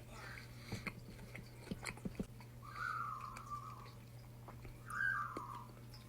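Pet bird giving two short warbling calls that fall in pitch, about three and five seconds in, over scattered soft clicks.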